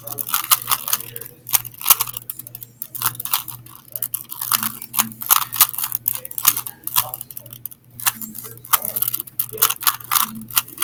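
A regular plastic Rubik's cube being turned quickly by hand: a fast, irregular run of clicks and clacks as its layers snap round.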